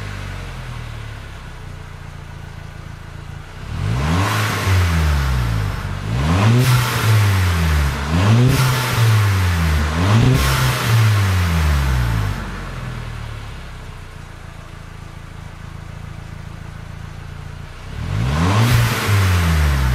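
Stock exhaust of a Mk5 VW GTI's turbocharged 2.0-litre four-cylinder, recorded at the tailpipes. The engine idles, is blipped up and back down four times in a row, settles back to idle, and is revved once more near the end.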